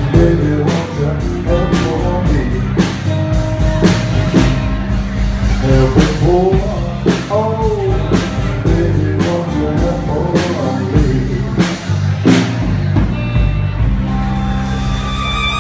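Live blues band playing a slow blues, with drum kit, electric guitar and bass under a sung lead vocal. About two seconds from the end the drumming stops and the band holds sustained notes.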